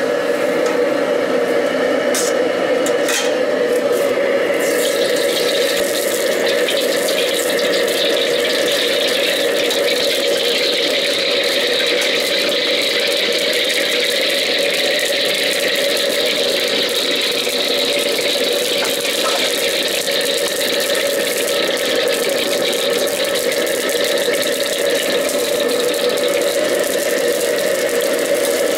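Commercial high-flame gas wok burner running steadily, with hot oil and meat sizzling in the wok as a metal ladle stirs it. There are a few sharp clicks early on, and the hissing grows brighter about five seconds in.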